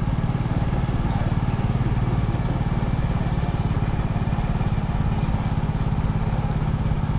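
Motorcycle engine running at a steady speed, its low even firing note unchanging throughout, with light road and wind noise.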